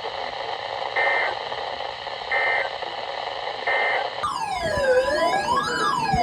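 Weather radio static with three short data-burst beeps about 1.3 s apart: the end-of-message signal of an Emergency Alert System (SAME) broadcast. About four seconds in, a louder electronic siren tone starts, sweeping up and down about every second and a half.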